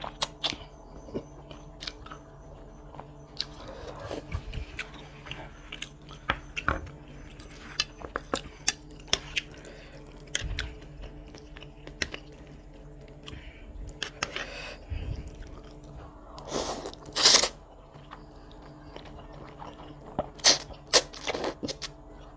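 Close-miked eating of chicken noodles with meatballs: wet chewing and mouth clicks, with a few louder slurps of noodles, about 17 s and 21 s in.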